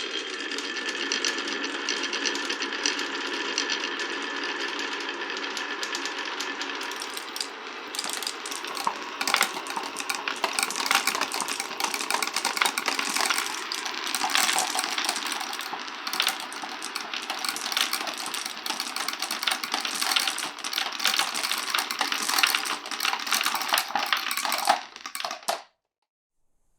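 Marbles rolling and clattering down a wooden marble run: a steady rolling rumble for the first several seconds, then dense clicking and knocking as the marbles drop, bump into each other and hit the wooden blocks and rails. It cuts off suddenly near the end.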